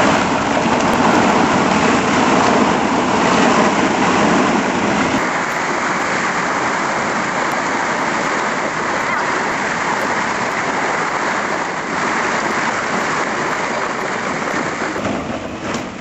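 Dense, steady rattling of many plastic ball-pit balls churned by children wading through them. It eases slightly about five seconds in and cuts off near the end.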